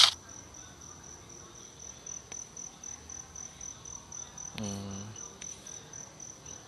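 A steady, high-pitched, slightly pulsing trill throughout. A sharp click comes right at the start, and a brief low hum of a man's voice about four and a half seconds in.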